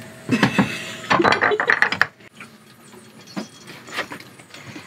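Clicking and scraping of a small cooked conch shell being picked apart by hand, with a rattle of cutlery and dishes on the counter. There is a dense clatter in the first two seconds, then a few separate clicks.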